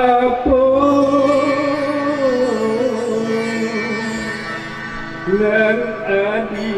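Music: a melody of long held notes that waver and slide, falling in the middle, with a new phrase starting about five seconds in.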